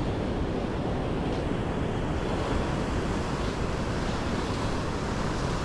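Ocean surf breaking on a rocky shore: a steady wash of waves.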